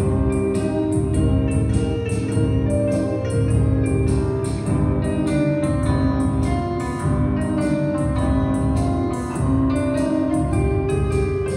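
Male group singing a song, accompanied by electronic keyboard, electric guitar and drums keeping a steady beat.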